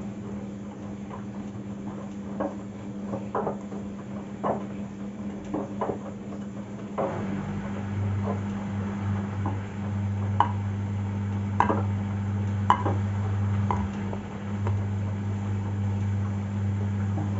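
Arctic front-loading washing machine on a cottons 60° cycle, its drum turning a wet load with a steady motor hum and irregular clicks and knocks as the laundry drops. About seven seconds in, a second, lower hum joins and the machine gets louder, early in its final spin.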